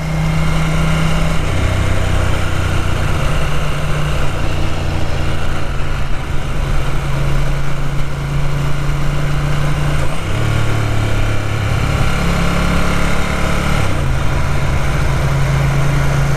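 Ducati 900SS air-cooled V-twin motorcycle engine running under way, its pitch dropping and rising again several times as the engine speed changes. The engine runs rough and won't hold a steady, comfortable speed, which the rider puts down to carburettor trouble.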